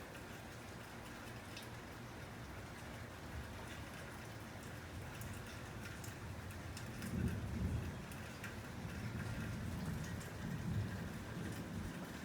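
Steady rain falling, with scattered sharp ticks of single drops. About seven seconds in, a low rumble of thunder swells up and rolls on in waves until near the end.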